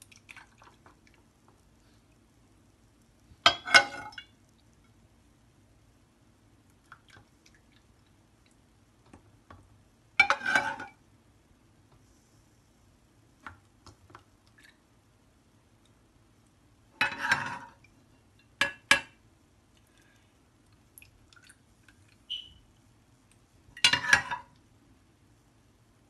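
A metal ladle clinking and scraping against a metal saucepan as liquid is scooped and poured into a plastic ice-lolly mould: five short clatters several seconds apart, over a faint steady hum.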